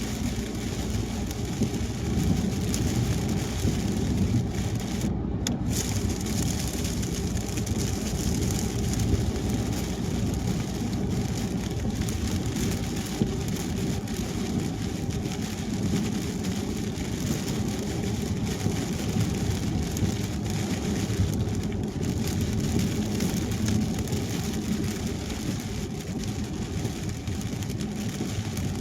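A car driving on a wet highway in the rain: steady road and tyre noise mixed with rain, holding at a constant level.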